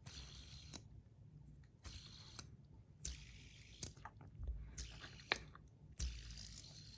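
Fidget spinner flicked by hand again and again, about five times: each flick is a sharp click followed by a short high hiss that fades as it spins.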